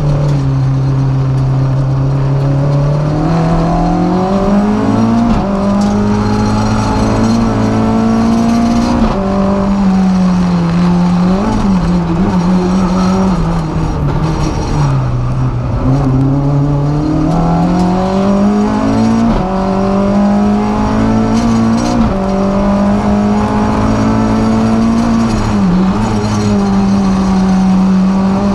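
Renault Clio F2000 rally car's 2-litre four-cylinder engine at full stage pace, heard from inside the cabin. The revs climb and drop sharply again and again as it shifts gears and lifts or brakes for corners.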